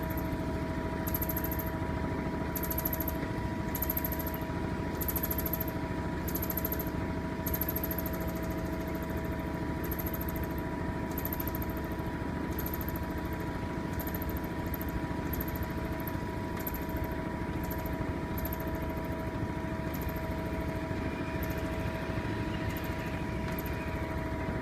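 Washing machine spinning, with a steady, fast rattling buzz and a constant hum from the lower panel. The owner takes the noise for the panel interfering with the machine, a fault that repeated repairs have not cured.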